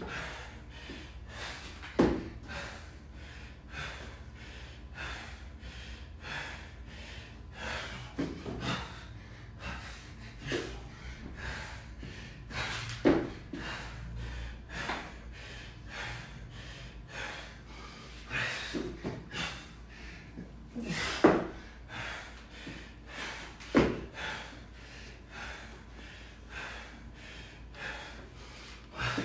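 A man's heavy, rapid breathing and gasping as he recovers from hard exertion, one breath about every second, with a few louder, sharp sounds standing out.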